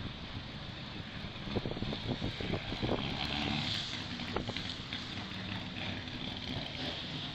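Roadside traffic noise with wind on the microphone, and a cluster of short knocks from about one and a half to four and a half seconds in.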